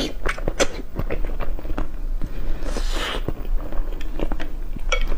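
Close-miked eating sounds: biting and chewing with many quick wet mouth clicks, and a brief hiss about three seconds in.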